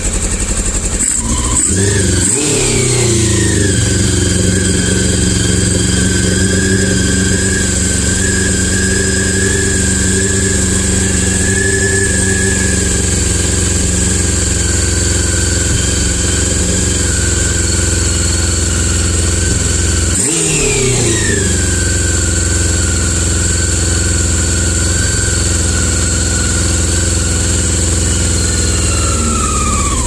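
Four-cylinder carbureted motorcycle engine idling steadily during carburetor synchronization. The revs rise briefly twice, about two seconds in and again about twenty seconds in, then fall back to idle.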